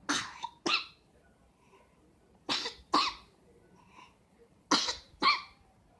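A sick baby coughing in three bouts of two coughs each, about two seconds apart.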